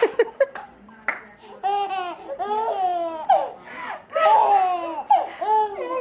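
Baby laughing in two long bursts of high, rising-and-falling laughs, after a few sharp clicks in the first second.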